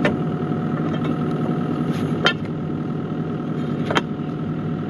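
Bobcat E50 mini excavator's diesel engine idling steadily, with three sharp metallic knocks, one about two seconds in and one near the end, as pry bars strike and lever the steel-cored track over the front idler.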